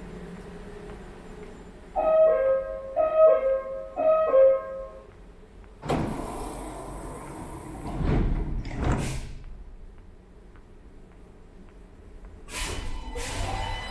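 Door-closing warning chime of a CSR metro train: a falling two-note chime sounded three times, about once a second. The doors then slide shut with hisses and thuds, and near the end a rising motor whine starts as the train begins to pull away.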